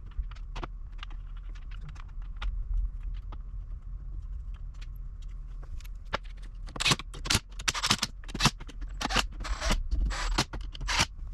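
Metal hand tools and parts clicking and scraping: scattered light clicks at first, then from about seven seconds in, louder rapid clusters of clicks and scrapes.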